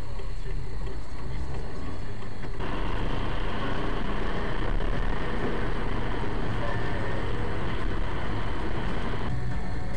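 Car cabin noise picked up by a dashcam: a steady low engine and road rumble. From about two and a half seconds in until near the end, a louder hiss of tyres on a wet motorway joins it.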